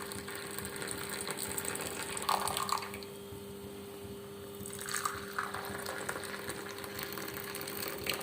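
Hot milky poppy-seed tea being poured into a cup, a steady splashing fill that eases off about three seconds in and picks up again a couple of seconds later. A low steady hum sits underneath.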